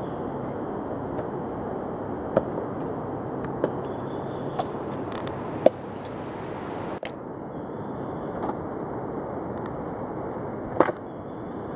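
A steady rushing noise with scattered light clicks and a few sharper knocks, the loudest a little before halfway and near the end, from a handheld camera being moved through forest undergrowth.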